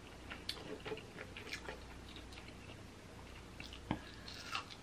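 Faint eating sounds close to the microphone: scattered light clicks and taps of food being handled, then a bite into a small fried snack about four seconds in, followed by chewing.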